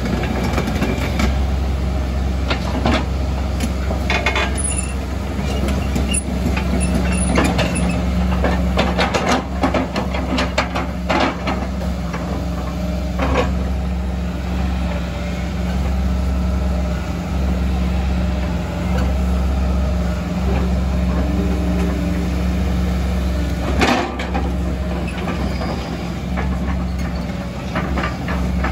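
Kobelco SK140 excavator's diesel engine running steadily as the tracks, boom and arm are worked hydraulically, with scattered clanks and knocks from the moving steel, one sharper knock late on.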